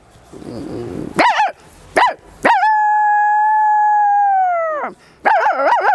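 A woman imitating a Bhote dog with her voice: a low growl, two short yelps, then one long, steady howl that drops in pitch as it dies away.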